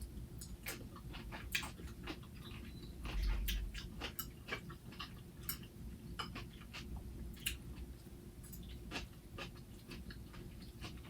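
Close-miked chewing of a crunchy raw salad, with irregular crisp crunches and mouth clicks. A low thump or rumble comes about three seconds in.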